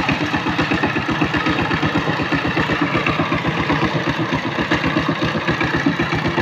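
Walk-behind power tiller's single-cylinder diesel engine running steadily under load with an even, rapid beat as it churns through wet paddy mud.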